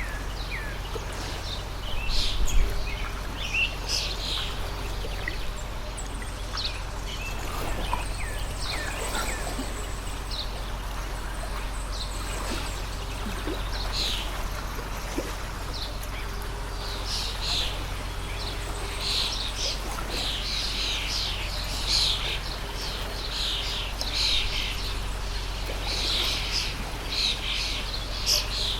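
Many small birds chirping and calling in quick short notes, busier in the second half, over the steady rush of a flowing stream.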